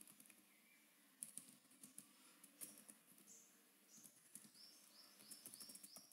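Faint computer keyboard keystrokes, scattered clicks as a word is typed and partly deleted. A short run of faint, high, evenly repeated chirps comes in over the last two seconds.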